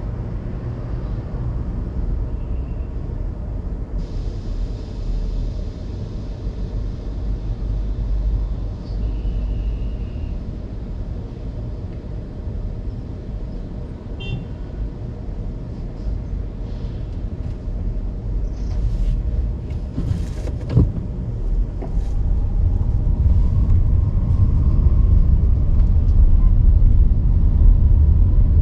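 Car driving on city streets: a steady low rumble of engine and tyre road noise that grows louder over the last several seconds. A single sharp knock about two-thirds of the way through.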